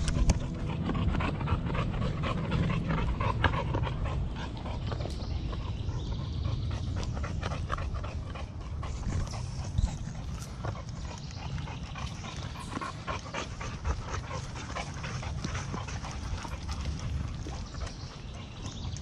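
A dog panting as it trots close by, with irregular crunching footsteps on a leafy dirt forest trail over a steady low rumble.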